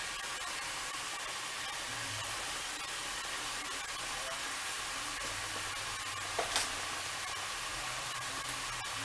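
Ground beef sizzling steadily in a skillet as it browns, with a brief click a little past halfway.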